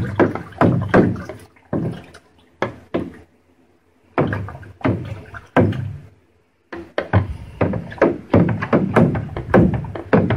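A spoon stirring honey-water mead must in a glass carboy, knocking against the glass about twice a second, each knock ringing briefly. The knocking pauses twice and quickens in the last few seconds.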